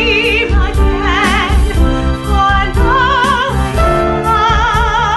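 A woman singing held notes with wide, even vibrato in an operatic style, over accompaniment with steady bass notes and a regular low beat.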